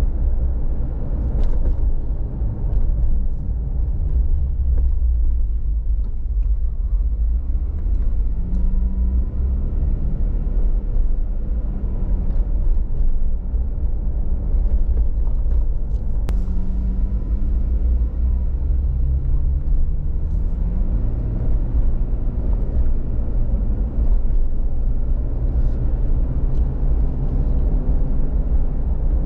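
Car driving on the road: a steady low rumble of wind and tyres, with the engine's hum shifting pitch several times and rising steadily about two-thirds of the way through as it accelerates.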